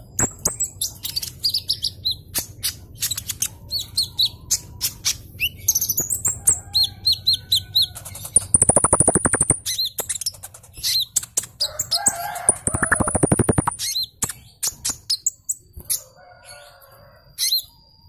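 Male kolibri ninja (Van Hasselt's sunbird) singing vigorously: a stream of sharp chips and high whistled notes, with two loud, fast rattles about eight and twelve seconds in.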